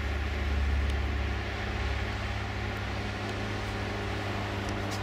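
Steady drone of a single-engine propeller aircraft flying overhead, with a deeper low rumble in the first second or so that then settles to an even hum.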